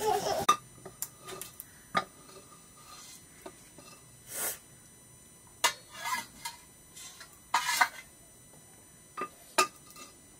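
Metal pot, bowls and plates clinking and knocking as rice is served out with a wooden spoon: irregular sharp clinks a second or two apart.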